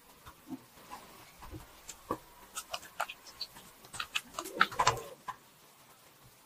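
Silicone spatula folding beaten egg into thick choux pastry dough in a pot: a run of wet, sticky squelches and clicks, busiest around four to five seconds in, then stopping about five seconds in.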